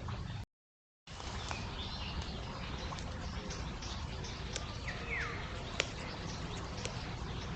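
Countryside ambience with scattered bird chirps and calls over a steady low rumble, including one call that slides downward about five seconds in and a few sharp ticks. The sound cuts out completely for a split second near the start.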